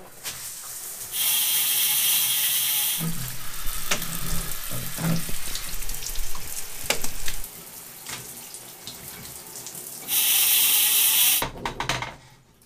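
Shower water spraying over a dirty road bike being washed, in two loud bursts of spray, the first about a second in and the second near the end, with quieter knocks and splashes in between.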